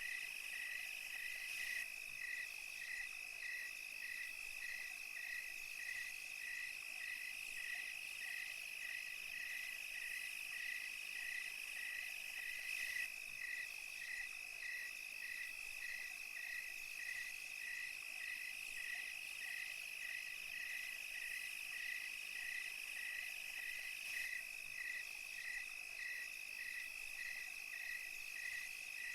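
Night chorus of crickets and other insects: a steady high trill with a regular chirp under it about twice a second, over a fainter high insect hiss.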